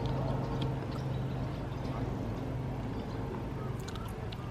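A steady low machine hum, with a few faint clicks over it.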